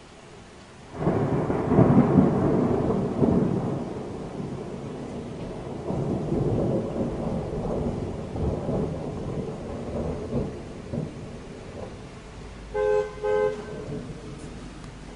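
Thunder: a sudden loud crack about a second in, then a long rolling rumble that slowly fades. Two short beeps sound near the end.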